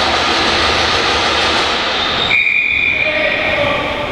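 Loud, steady rush of a box lacrosse game in an echoing arena. About halfway through the rush drops away and a brief high squeal sounds.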